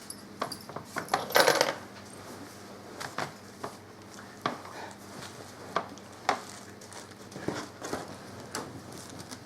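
Small metal screws and a screwdriver being handled while a laptop battery is unscrewed: scattered sharp clicks and taps, with a short burst of rattling about a second and a half in.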